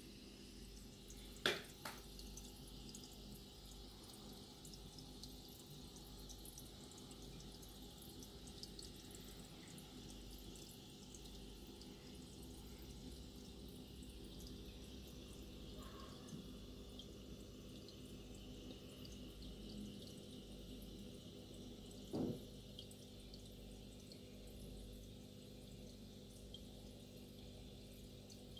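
Faint aquarium water trickling and dripping over a low steady hum. Two short sharp knocks, one near the start and one about two-thirds of the way through.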